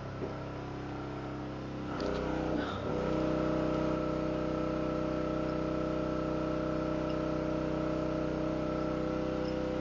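Portable generator engine running steadily as it powers a pressure washer. About two seconds in it grows louder and its note shifts, then settles into a steady drone.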